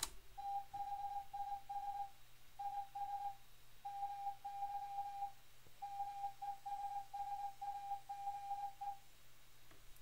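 Computer-generated Morse code from the Linux morse program: one steady beep tone keyed on and off in short and long beeps (dots and dashes), in groups with short pauses between them, sounding out a typed text message. It stops about a second before the end.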